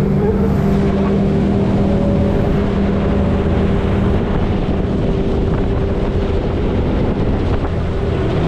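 Small outboard motor on an aluminium jon boat running at speed, a steady drone, with water rushing along the hull and wind on the microphone.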